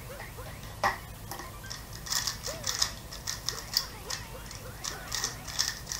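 One sharp knock a little under a second in, then a 3x3 Rubik's speedcube being turned quickly in the hands, its layers clicking in rapid irregular bursts.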